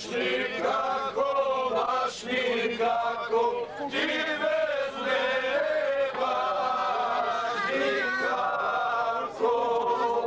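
A group of men singing together, holding long notes.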